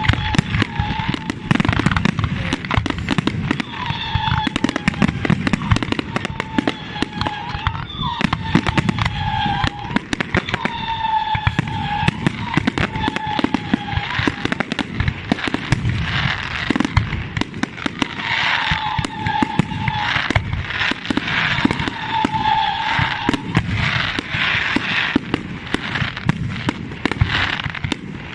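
Fireworks display with dense, rapid crackling and popping throughout. Repeated whistles about a second long each cut through the crackling, several of them dipping in pitch as they end.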